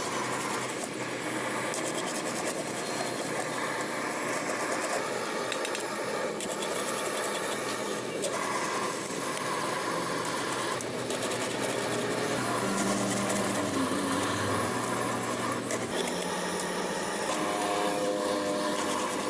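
Rapid back-and-forth scraping of a flat metal tool over a stack of lead-acid battery plates as they are cleaned. It is a steady rasping, with a low hum underneath.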